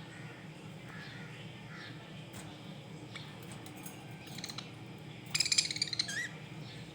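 Budgerigars chirping softly, then a louder, harsh burst of rapid chatter about five seconds in that ends in a short warbled chirp.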